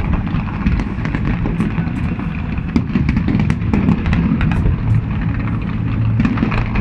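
Fireworks going off: a continuous low rumble of bursts with many sharp crackles and pops scattered throughout.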